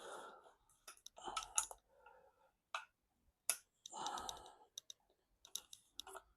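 Scattered sharp clicks and a few short scraping rustles of hand work on the engine's fuel-injection parts, faint throughout.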